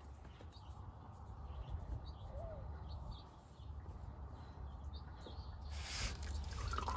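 Faint bird chirps over a low steady hum, then about six seconds in a hiss and splash as oil starts running out of the just-loosened spin-on oil filter.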